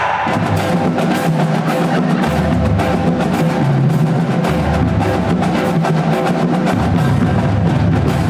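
High school marching band playing a stand tune: drums keep a steady beat under saxophones and brass, with the low notes shifting every second or two.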